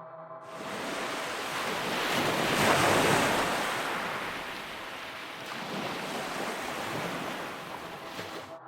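Surf noise of waves washing in, starting abruptly, swelling to a peak about three seconds in and fading, with a smaller swell later before it cuts off. A faint ambient music drone continues underneath.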